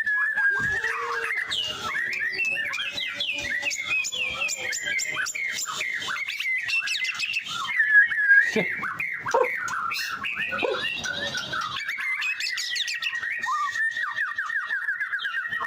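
White-rumped shama (murai batu) in full song: a rapid, varied stream of whistled notes and chattering phrases. Near the end it settles into a fast run of repeated notes on one pitch.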